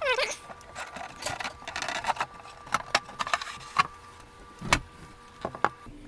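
Irregular clicks, knocks and scraping as a wall clock is taken apart by hand and a part is worked loose and pulled out.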